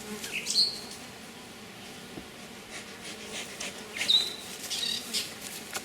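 Honey bees buzzing softly around an open hive. Two short rising bird chirps come through, about half a second in and again about four seconds in, with scattered scratchy rustling and handling sounds.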